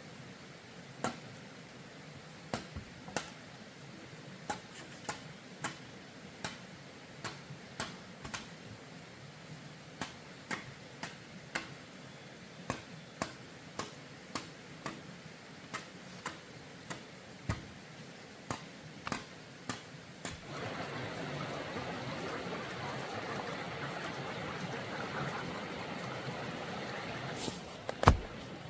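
Irregular light taps and clicks, then a steady rush like running water starts suddenly about two-thirds of the way in, with two sharp knocks near the end.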